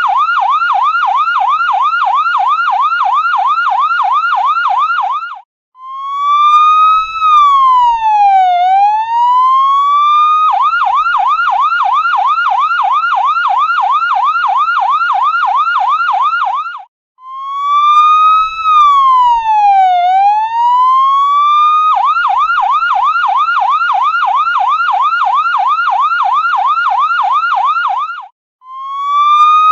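Electronic ambulance siren switching between a fast yelp of about three sweeps a second and a slower wail that falls and rises again. It cuts out briefly before each wail, three times in all.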